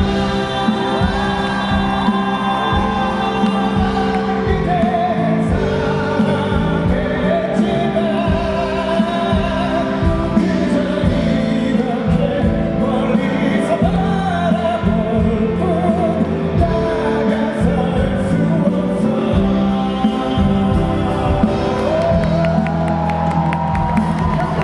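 Live music: a singing voice with vibrato over steady sustained accompaniment chords.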